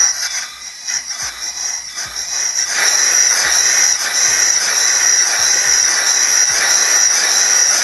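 Compressed shop air hissing through an opened 1960s–70s diaphragm gas meter that is being run backwards, with soft low knocks about once a second from its valves and linkage. The valves are held down by hand to stop them floating up; the hiss steadies and grows louder about three seconds in.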